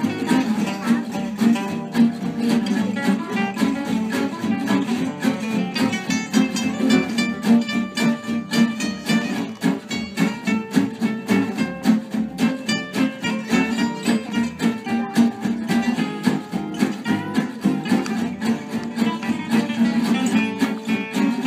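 An ensemble of acoustic guitars, several of them Selmer-style gypsy jazz guitars, playing together: a steady strummed chord rhythm under picked melody lines, with a double bass.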